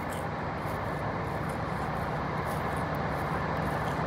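Steady low rumble and hum of a running vehicle, slowly building a little.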